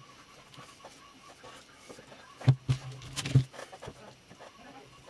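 Handling noise as modelling clay is worked by hand on a newspaper-covered table: faint rustles and taps, with a short cluster of louder knocks and thumps about halfway through.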